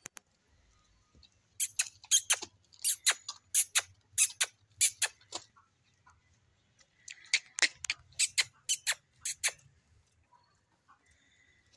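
A calf suckling at a goat's teat, making loud wet smacking sucks at about two a second. There are two runs of them, with a pause of about two seconds between as the calf re-latches.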